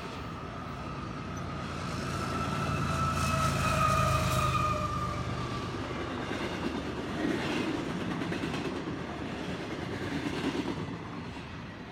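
Double-stack intermodal freight train passing, its loaded well cars rumbling and rattling steadily over the rails. About two seconds in, a faint, slightly falling squeal sounds for a few seconds, and a couple of sharper clacks come from the wheels later.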